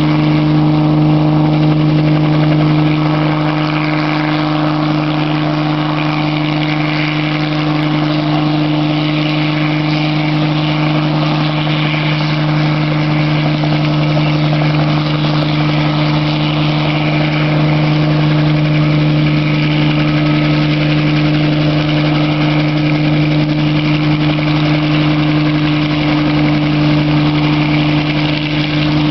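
Bell 47J-2 helicopter hovering: its six-cylinder Lycoming piston engine and rotor run steadily with a strong low hum and no change in pitch.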